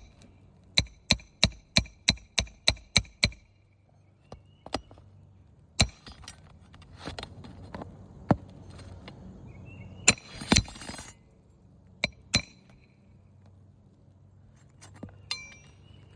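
Hammer driving roofing nails into a shingle: a quick, even run of about eight ringing strikes in the first few seconds, then scattered taps, a short rustle and two more strikes later.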